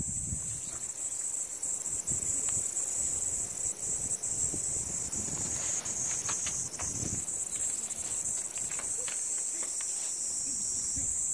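Steady high-pitched shrill of a summer insect chorus, with soft rustling and a few light ticks close by.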